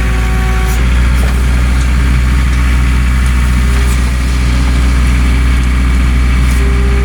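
New Holland LS160 skid steer engine running steadily with a deep, even hum.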